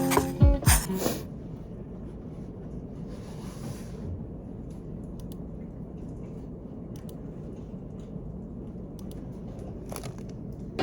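Guitar background music cuts off about a second in, leaving a steady low background hum with a few faint scattered clicks and a brief soft hiss.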